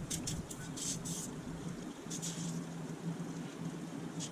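Short hissing sprays, four or five of them about a second apart, blown through the plugged main jet of a 1983 Honda 9.9 outboard's carburetor to clear it, over a steady low hum.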